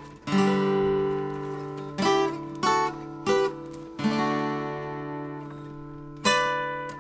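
Acoustic guitar strumming chords in a song's instrumental intro. Some chords are left ringing for a second or more, with quicker single strums in between.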